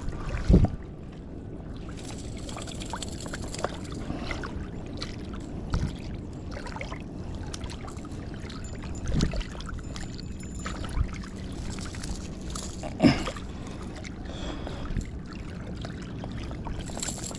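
Water lapping and moving at the waterside, a steady low wash, with a few brief knocks, the loudest about two thirds of the way through.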